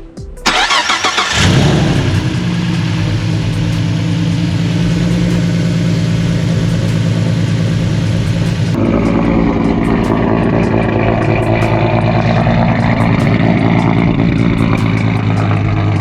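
A Ford S550 Mustang's 3.7-litre Cyclone V6 cranked on the starter and catching after about a second and a half, then idling steadily through a Flowmaster exhaust; it is the first start on a fresh set of E3 performance spark plugs. The sound of the idle changes abruptly about nine seconds in.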